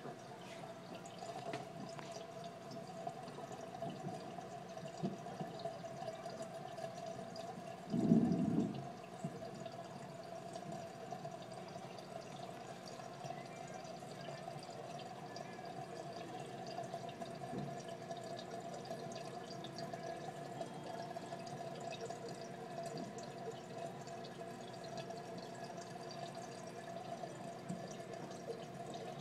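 Fish tank water trickling and dripping over a steady hum, with one dull thump about eight seconds in.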